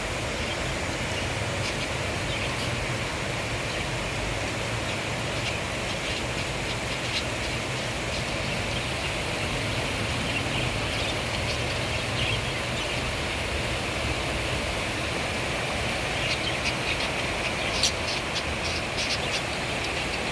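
Steady hiss of rainfall, with short bird chirps in the last few seconds.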